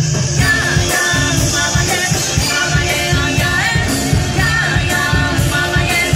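Peruvian cumbia band playing live through the stage speakers: a drum kit keeps a steady driving beat under keyboard and guitar, with a singer's voice over the top.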